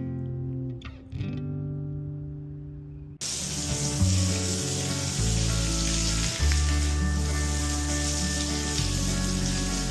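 Background guitar music; about three seconds in, a steady hiss of a garden hose spraying water starts suddenly and runs on under the music.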